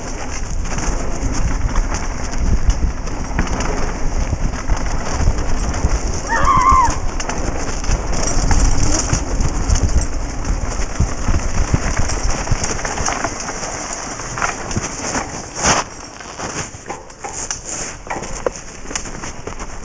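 Wind buffeting a helmet-mounted camera's microphone while riding a bicycle fast down a dirt and gravel forest trail, with tyre noise and constant rattles and knocks from the bike over the bumps. There is a brief squeak about six seconds in and a sharp knock later on.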